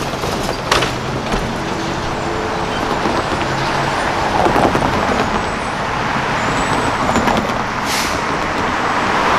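Road traffic: cars driving across a railroad grade crossing, a steady wash of tyre and engine noise that swells as each car passes. A short sharp noise comes just under a second in and another about eight seconds in.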